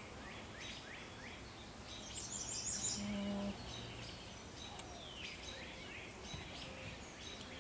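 Wild birds singing: repeated short chirps sliding downward, with a quick high trill about two seconds in, over faint steady background noise.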